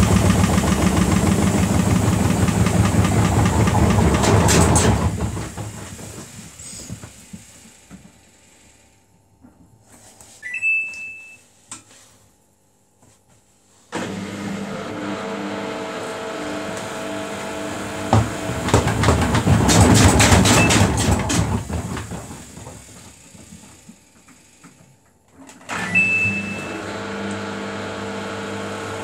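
Samsung WF80F5E0W4W front-loading washing machine spinning at about 460 rpm with a badly unbalanced load, loud and knocking as the cabinet jumps, then coasting down to a stop over several seconds. After a short beep the drum motor starts again suddenly with a whine and builds to another loud, knocking spin, which fades away. A second beep and another motor start come near the end.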